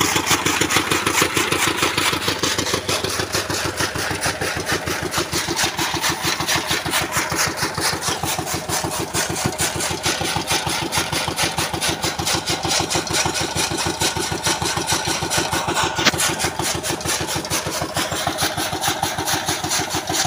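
Powered chaff cutter running and chopping bundles of dry fodder stalks, a fast, even run of chops over the machine's steady drive.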